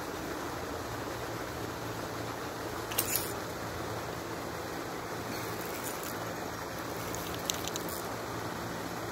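Steady outdoor hiss with a few short clicks, about three seconds in and fainter ones later, from fishing rods and reels being handled as the lines are cast and the rods set out.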